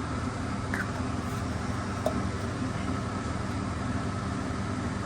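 An engine running steadily at idle: an even, low drone, with a faint click about two seconds in.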